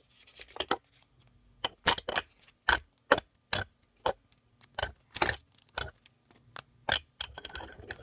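Irregular sharp clicks and ticks of a steel AR-15 magazine spring and a green plastic part knocking together as they are handled and a small hook is worked into place.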